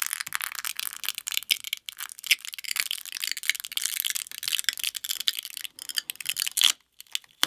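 Adhesive pull tab being pulled out from under a smartphone battery: dense high crackling and tearing of the glue as it peels, the battery strongly adhered. The crackling stops shortly before the end.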